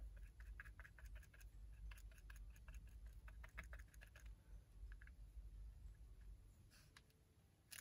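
Faint, irregular light clicks and taps of small craft pieces, such as a rhinestone, being handled and pressed onto a notebook cover, over a faint low hum.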